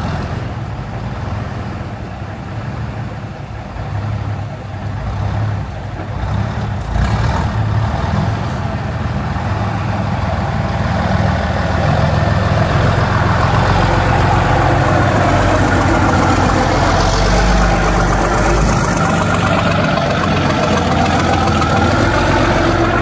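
Truck engine running at idle, getting louder about seven seconds in and then holding steady.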